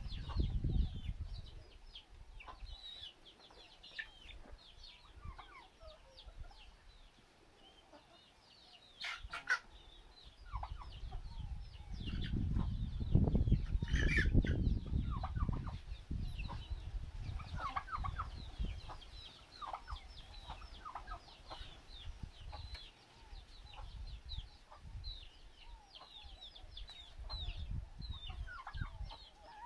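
Flock of chickens clucking and calling, many short calls overlapping throughout; a low rumbling noise swells under them near the middle.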